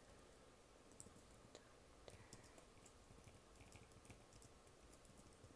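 Computer keyboard being typed on softly: quick, irregular key clicks, coming faster in the second half.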